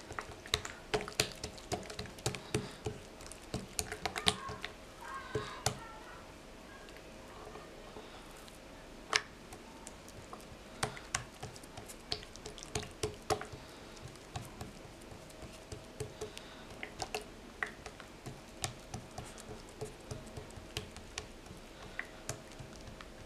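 Hands patting and spreading oiled dough thin on an oiled glazed clay dish: a run of soft, irregular slaps and squishes, with a short lull about a third of the way through.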